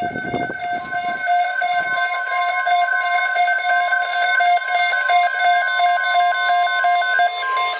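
NOAA Weather Radio emergency alert tones announcing a flood watch: loud, steady electronic alarm tones at several fixed pitches, with another continuous tone joining about a second in.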